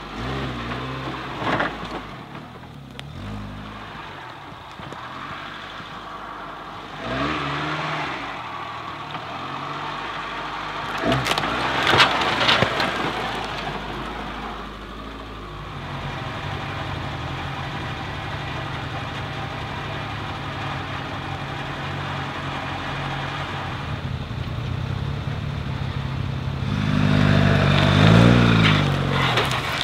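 Engine of a small modified 4x4 crawling over rocks. It holds a steady pace and revs up in swells, a few times and hardest near the end. Sharp knocks about eleven to twelve seconds in.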